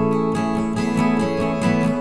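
Background music played on acoustic guitar, with steady plucked notes.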